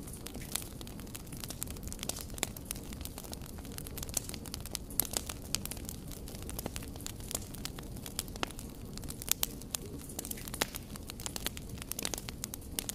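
Wood fire of burning logs crackling, with frequent irregular sharp pops and snaps over a low, steady rush of flame.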